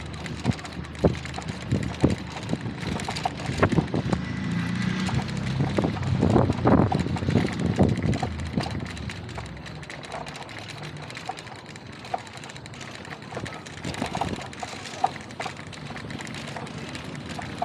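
Street noise heard from a moving bicycle: wind on the microphone and irregular knocks and rattles, louder for a few seconds around the middle.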